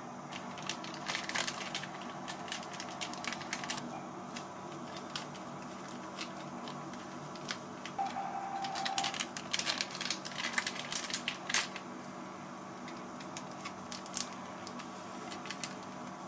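Plastic sachet of instant soy milk powder crinkling as it is handled and emptied into a glass measuring jug, heard as two spells of crackly clicks over a low steady hum.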